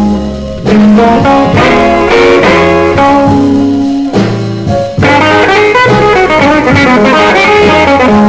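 Instrumental intro of a 1958 slow-blues record playing from a 45 rpm single: guitar over sustained horns, before the vocal starts.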